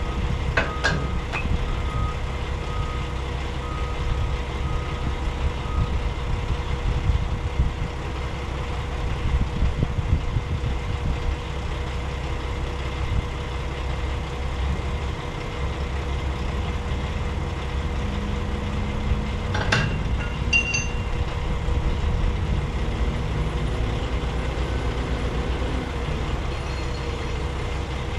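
Steady low rumble of an idling truck, with a backup alarm beeping about once a second for the first six seconds. Two sharp clanks, one about a second in and one near twenty seconds in.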